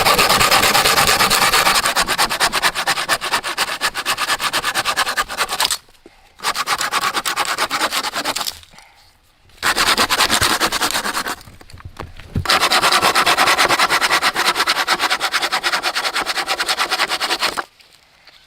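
A hand tool rasping rapidly back and forth on wood, in four runs broken by short pauses.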